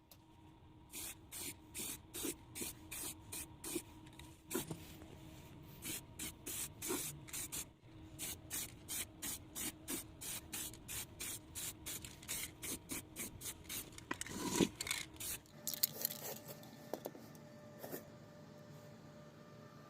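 Rhythmic hand-worked rubbing strokes, about two to three a second, each a short hiss-like scrape. They stop at about fifteen seconds in, leaving a faint steady background.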